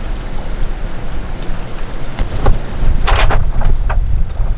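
Wind buffeting the microphone as a steady low rumble, with a few clicks and a short burst of rattling about three seconds in as the receiver cables are handled against the boat's rail.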